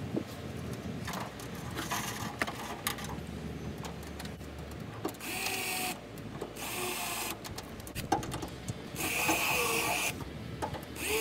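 Hitachi cordless drill boring into an aluminium diamond-plate toolbox lid, the motor whining in three short bursts of about a second each in the second half, with a few handling clicks and knocks before.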